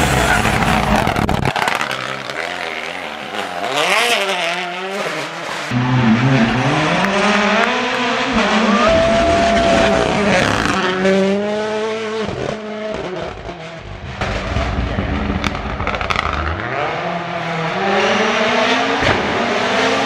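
Toyota GR Yaris Rally1 rally cars, with 1.6-litre turbocharged four-cylinder engines, driven hard past at close range in several passes. The engine revs up through the gears and drops off on braking for corners, with sharp cracks from the exhaust among the gear changes.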